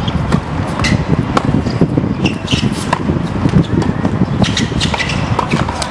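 Tennis ball being struck back and forth with rackets: scattered sharp pops and knocks over a loud, steady low rumble.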